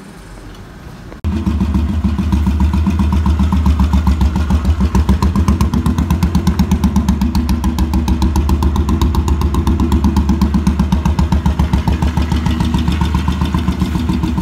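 Royal Enfield Bullet 350's single-cylinder four-stroke engine idling with a rapid, even pulse, cutting in abruptly about a second in.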